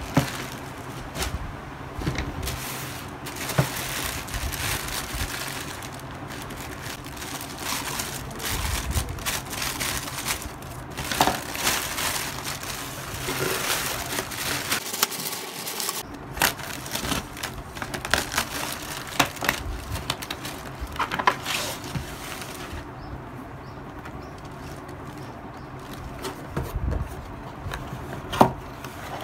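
Plastic packaging bags crinkling and rustling as they are handled and opened, with many sharp crackles and clicks; the handling grows quieter in the last few seconds.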